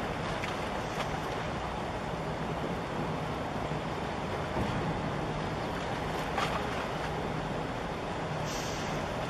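Steady wind on the microphone and water noise, with a low, even engine hum underneath.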